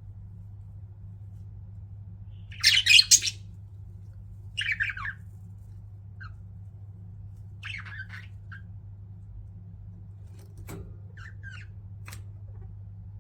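Pet budgerigars chirping in short bursts, loudest in a cluster about two and a half seconds in, again near five seconds, then fainter calls later on. Two sharp clicks come near the end, over a steady low hum.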